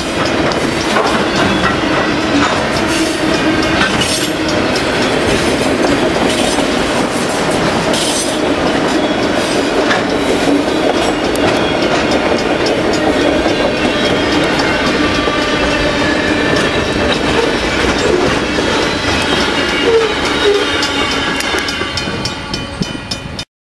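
Freight cars of a passing freight train (autoracks and boxcars) rolling by at speed, with wheels clacking over rail joints under a steady rolling rumble. The sound sags a little near the end as the last cars pass, then cuts off suddenly.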